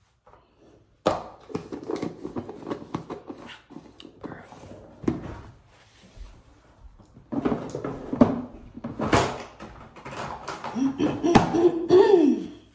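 Handling noise of things being moved about at close range: a string of knocks and clicks starting about a second in. A short stretch of voice or humming comes near the end.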